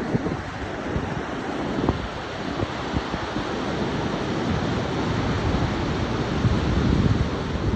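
Ocean surf washing steadily, with wind buffeting the microphone in irregular low rumbling gusts.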